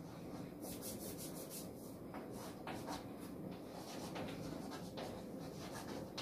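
Chalk writing on a blackboard: a run of short, faint scratching strokes as a word is chalked.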